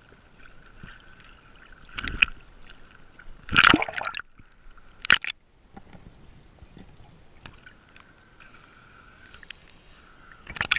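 Lake water sloshing and splashing against a GoPro's waterproof housing as it dips in and out of the surface, with a few short loud splashes.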